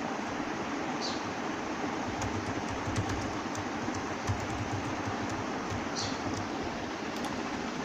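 Computer keyboard keys clicking as a password is typed, with a sharper click about four seconds in, over a steady background hiss.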